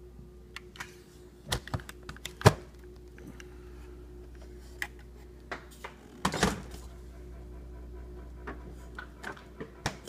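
LG French-door refrigerator, its ice maker switched off, running with a steady low hum. Over the hum come irregular sharp clicks and knocks, the loudest about two and a half seconds in, and a heavier thud a little after six seconds.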